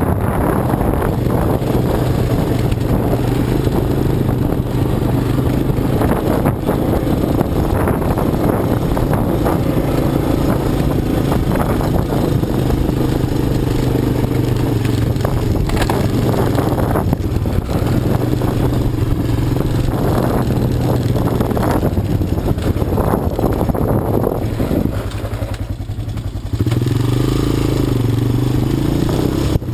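ATV engine running as the quad is ridden, with its pitch rising and falling and frequent knocks and rattles over rough ground. About 25 seconds in the engine eases off and goes quieter, then picks up again louder a second or so later.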